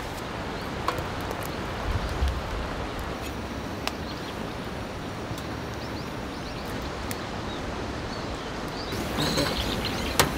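Steady outdoor background noise with a few faint clicks, and birds chirping from near the end.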